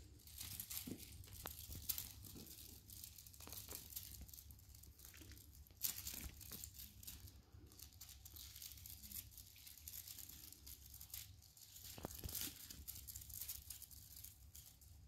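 Maine Coon kittens scrabbling and pouncing on a tiled floor while grabbing at a feather wand toy: faint irregular rustling and scratching with a few sharp clicks, over a low steady hum.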